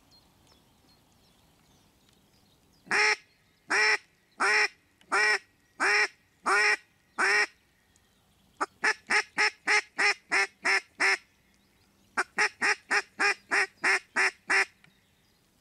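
Live decoy hen mallard quacking in series, calling to draw drakes in. First comes a slower run of seven quacks, then two quick runs of about a dozen quacks each, roughly four a second.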